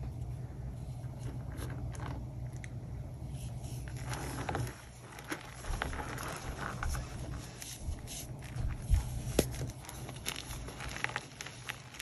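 A block of Pro Source gym chalk coated in iron oxide powder being squeezed and broken apart by hand, giving soft crunches, crackles and scrapes, busier from about four seconds in with a few sharper snaps. A steady low hum runs underneath.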